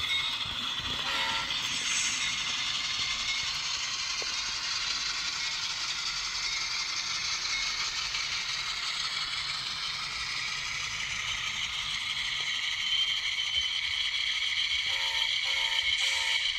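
Sound decoder of an Atlas N scale GE Dash 8 diesel locomotive playing its diesel engine running sound through the model's tiny speaker while the locomotive moves along the track. There is a short horn toot about a second in and three short toots near the end.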